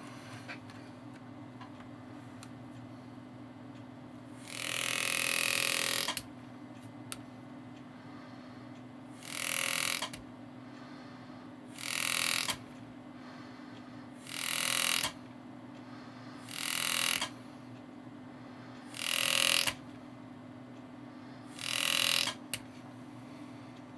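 Power-assisted engraving graver cutting shading into a steel rifle grip cap: seven short spells of cutting, each about a second long and a couple of seconds apart.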